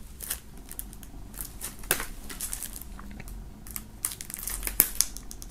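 Plastic shrink wrap on a CD jewel case crinkling and crackling as a knife point slits it, with a few sharp clicks scattered through.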